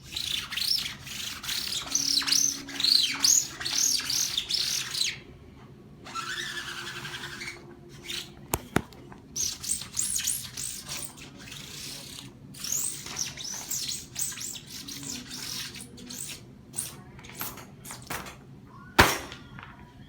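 Rapid, high, bird-like chirps in bursts of several a second, each rising and falling in pitch, with a couple of sharp clicks between the bursts.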